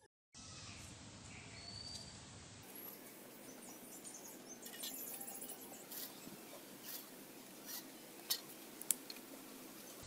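Faint outdoor background with scattered light clicks and knocks from bamboo pieces and a hand saw being handled on the ground. Two sharper knocks near the end are the loudest sounds, and there is a brief high whistle about two seconds in.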